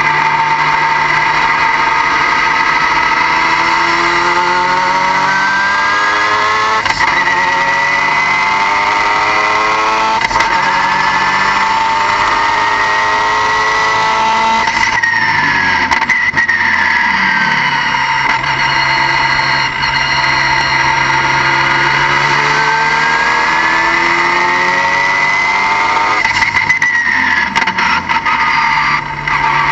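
Car engine pulling under load: its pitch climbs steadily, drops sharply about halfway through, climbs again and drops near the end, like upshifts. A constant high-pitched whine sits over it throughout.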